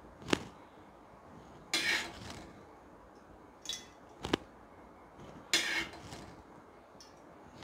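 A steel spoon clinking and scraping against metal kadais as spoonfuls of oil are ladled from one pan into the other: two sharp clinks and a few short scrapes.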